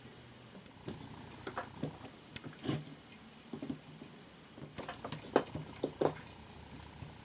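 Quiet handling noise of fingers pressing and shaping modelling clay on a wooden board, with scattered soft taps and clicks. A few sharper taps come about five and six seconds in, as a pointed tool trims the clay.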